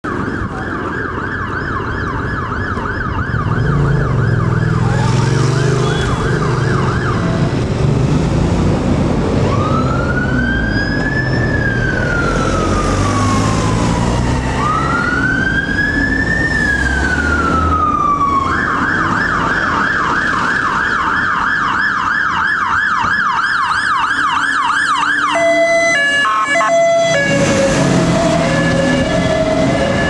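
Fire engine's electronic siren, switching between a fast yelp and a slow rising-and-falling wail: yelp at first, two long wail cycles from about ten seconds in, yelp again, then a brief choppy horn-like blast before the wail starts again near the end. A low engine and traffic rumble runs underneath.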